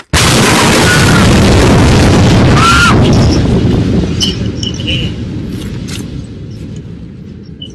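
Beirut explosion's blast hitting the reporter's building, heard through a video-call microphone: a sudden overloaded boom. It holds at full loudness for about three seconds, then dies away over the next four.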